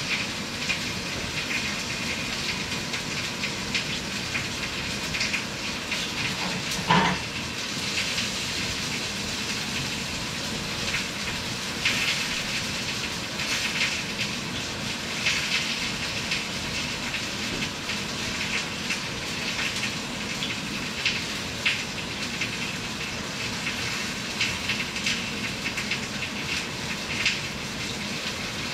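Chicken frying in a pan on the stove: a steady sizzling hiss with scattered small crackles and pops, and one louder knock about seven seconds in.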